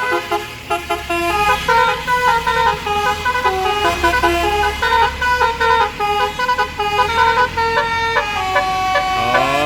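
A bus's basuri multi-tone musical horn playing a fast tune, its notes stepping up and down in pitch every fraction of a second, over the bus's idling diesel engine. Near the end the horn swoops down and back up in pitch.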